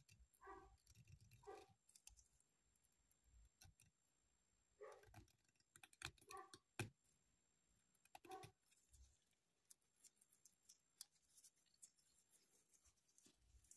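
Faint scraping strokes and sharp ticks of a small blade shaving a wooden toothpick thinner, a few short scrapes with pauses between and one sharper tick about two-thirds of the way through.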